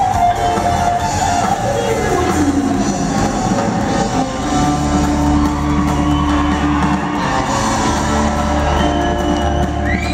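Live band playing amplified electric guitars over bass and drums, with one note gliding down in pitch about two seconds in.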